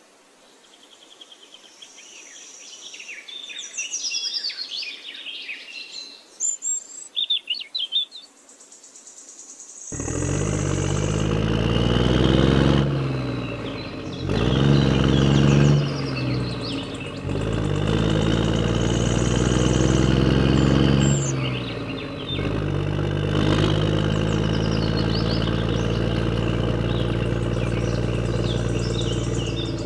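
Birds chirping for about the first ten seconds. Then an engine starts abruptly and runs with a steady low throb, its pitch rising and falling twice before it settles into an even run.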